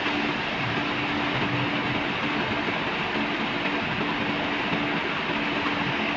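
Steady, loud mechanical running noise of an engine-driven machine, a constant rushing din with a low hum that fades in and out.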